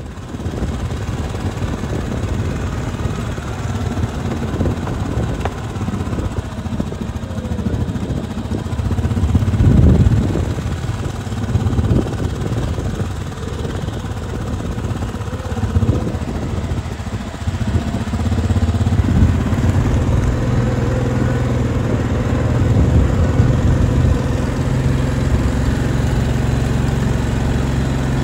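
Farm vehicle's engine idling, with a louder swell about ten seconds in and a steadier low hum through the second half.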